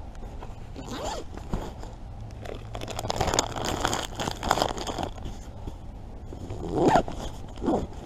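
Outdoor jacket and fleece rustling and a zip being worked as hands rummage in a pocket, with a plastic packet crinkling in the middle; the loudest short rasp comes near the end.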